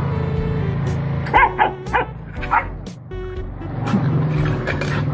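A young dog barking and yipping in a quick run of short, sharp calls around the middle, over steady background music.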